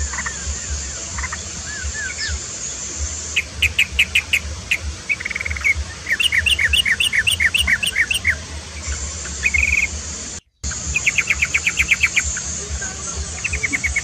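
Yellow-vented bulbul (trucukan) calling in quick runs of short, sharp chattering notes and several rapid trills, over a steady high hiss. The sound cuts out for a moment about ten and a half seconds in.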